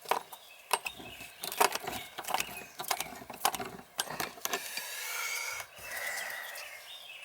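Metal clicks and clinks of tools and brass fittings as the old outdoor shower valve's threaded nuts are worked loose, irregular for the first few seconds, then a steadier scraping toward the end.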